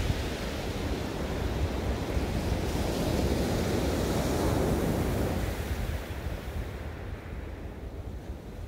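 Sea waves breaking and washing up a pebble beach, with wind rumbling on the microphone. The surf swells about three to five seconds in, then dies down toward the end.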